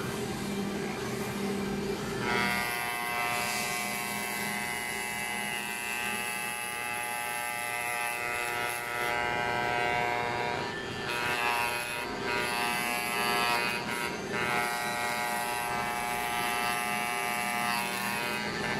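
Corded electric hair clippers buzzing steadily as they are run through long hair on a head, their hum brightening about two seconds in. The clippers are struggling and not cutting the long hair well.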